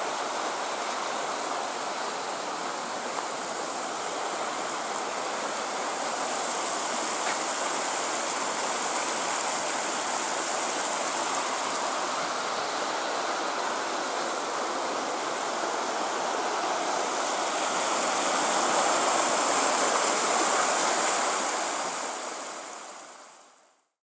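Small mountain stream rushing steadily, growing a little louder about three-quarters of the way through, then fading out near the end.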